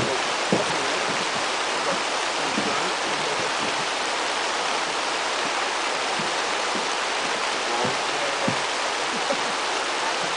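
Steady, loud rush of water.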